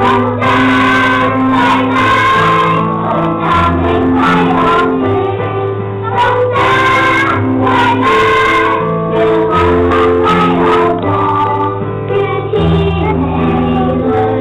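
Young children singing a song together over a keyboard accompaniment, with held bass notes changing every second or two.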